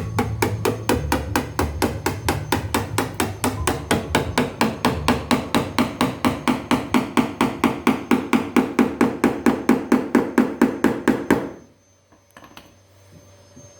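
Rapid, evenly spaced hammer blows, about five a second, growing a little louder, stopping abruptly about eleven and a half seconds in.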